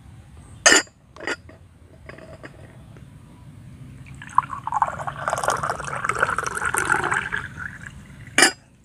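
Water poured from an enamel kettle into a drinking glass, a steady pour lasting about four seconds from roughly halfway in. A couple of sharp clinks of the kettle and glass being handled come before it, and another sharp clink near the end.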